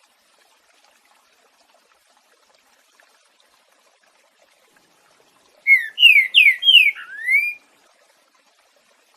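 Green-winged saltator (trinca-ferro) singing one short phrase of five loud whistled notes in its 'boiadeiro' song style, most sliding down and the last sliding up, a little past halfway. A faint trickle of running water goes on underneath.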